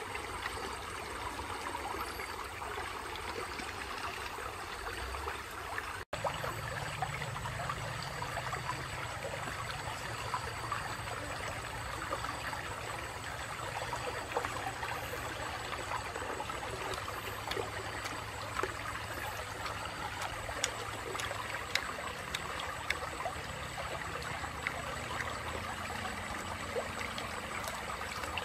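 Shallow rocky stream flowing and trickling steadily over stones.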